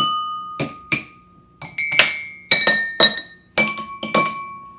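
Glasses, cups and dishes struck one after another as a homemade xylophone, each strike ringing out at its own pitch. About eight strikes, some in quick pairs; the last ring fades near the end.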